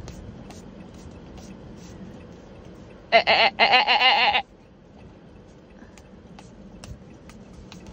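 Basset hounds licking whipped cream from paper cups, with faint scattered wet clicks. About three seconds in there is a loud, high, wavering vocal sound, twice in quick succession.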